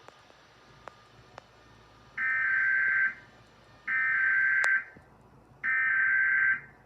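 Emergency Alert System SAME header: three bursts of digital data tones, each just under a second long with a short gap between them, marking the start of an alert message.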